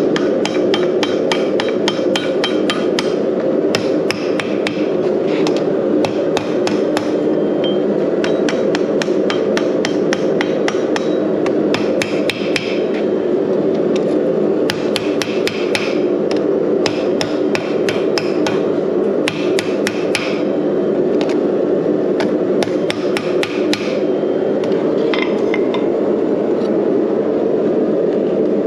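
Blacksmith's hand hammer striking steel on an anvil while forging a drawknife: quick runs of blows, several a second, each with a bright metallic ring, broken by short pauses. A steady low rumble lies underneath.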